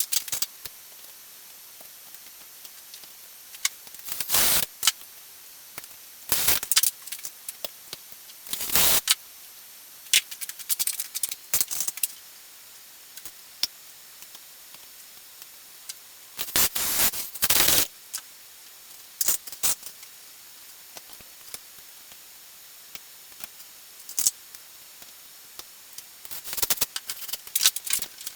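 Small hard parts being handled, clinking and rattling in short, irregular bursts separated by pauses.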